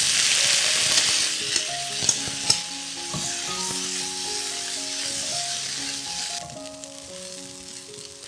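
Diced boiled potatoes going into hot oil in a frying pan with fried cabbage and mushroom, sizzling loudly as a spatula stirs them, with a few sharp knocks of the spatula against the pan. The sizzle drops to a quieter level about six seconds in.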